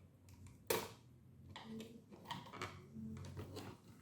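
Small plastic clicks and handling noise as fingers work a wire connector loose inside a TK8A solar water heater controller, with one sharper click about three quarters of a second in.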